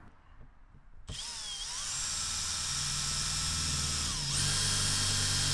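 Makita cordless drill drilling a pilot hole through the van's sheet-metal body panel. The motor whine starts about a second in and runs steady, then dips briefly near the end and picks up again at a higher speed.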